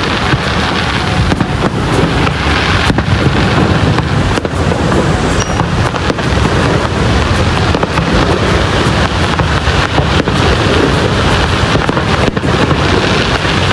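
Aerial fireworks bursting, with sharp bangs and crackle every second or two over the steady roar of Niagara Falls' rushing water.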